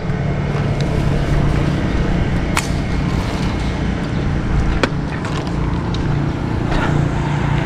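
A vehicle engine running steadily with a low hum and rumble, and a couple of sharp clicks.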